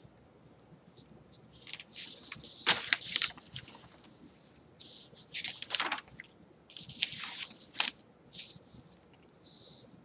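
Sheets of paper rustling in several short, irregular bursts as pages of a writing pad are turned over to a fresh page.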